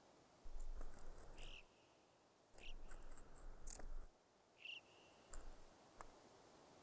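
Faint, scattered clicks and taps of an ibex's hooves on bare rock, with a few short, high bird chirps.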